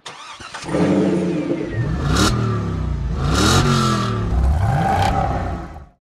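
Car engine revving up and down about three times, its pitch rising and falling with each rev, then fading out near the end.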